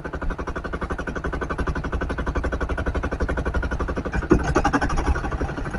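Outrigger fishing boat's engine running steadily with an even, rapid pulse while under way, with a sharp knock and a brief voice-like sound about four seconds in.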